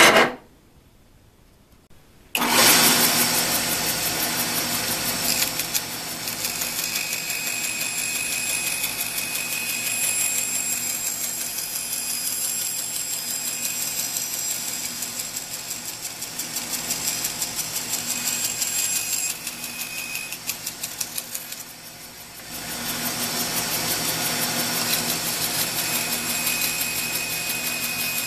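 A sharp clank at a bench vise as a clamped plywood piece is released. After a couple of seconds of quiet, a bandsaw runs with a steady motor hum while its blade cuts through half-inch plywood. The cutting sound eases briefly about three-quarters of the way in, then resumes.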